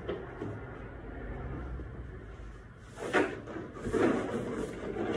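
Handling noises: knocks and scrapes of objects being moved and set down, with the loudest two about three and four seconds in, over a low background rumble.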